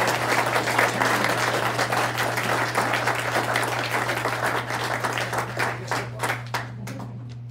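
Audience applauding: dense clapping from many people that thins out and dies away near the end.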